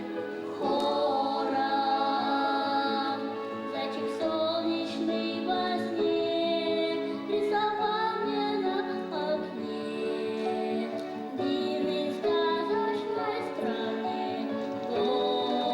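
Music from a stage musical: a song of long held notes, with singing over the accompaniment.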